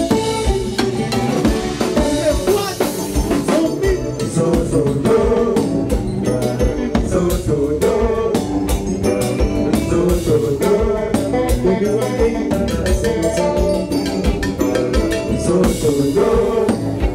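Live Haitian konpa band playing: drum kit keeping a steady dance beat under electric guitar, with singers at the microphones.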